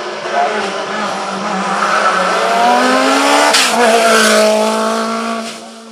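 Lancia Delta S4 Group B rally car's twin-charged four-cylinder engine accelerating hard, its pitch climbing, then a sharp crack at the gear change about three and a half seconds in, after which it pulls on at a lower pitch and fades near the end.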